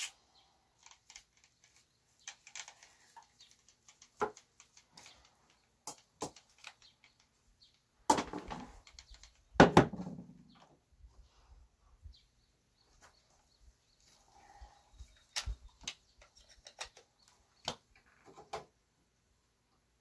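Scattered knocks and clatter of hand tools being handled and set down on a wooden worktable, loudest twice, a little past eight seconds and again near ten seconds; the sander and grinder are not running.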